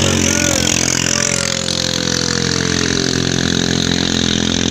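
A katinting boat engine running steadily and loudly. About a second in, a single tone slides slowly down in pitch over about two seconds.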